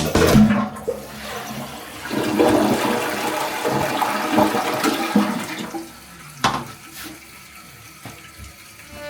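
A toilet flushing: a rush of water that eases off about six seconds in, followed by a single sharp knock.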